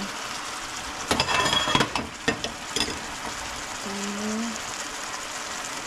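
Chicken adobo sizzling and simmering in a pan, with a short clatter of sharp clicks and knocks about a second in.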